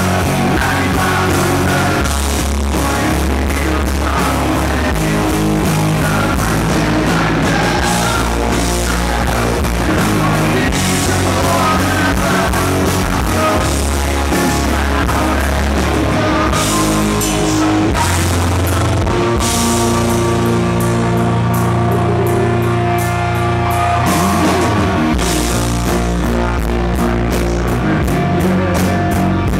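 Live rock band playing: male lead vocal over guitar, bass and drum kit, with the drums easing back for a few seconds past the middle.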